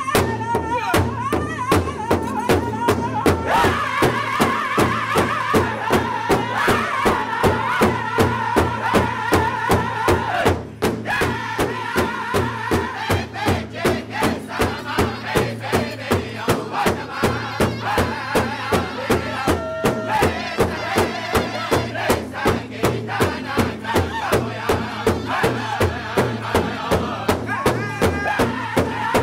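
Powwow drum group singing together around one large hide drum, all striking it in unison with padded drumsticks in a steady, even beat under high-pitched voices.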